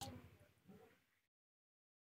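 Near silence: a single faint click right at the start, then the sound drops out to dead silence a little over a second in.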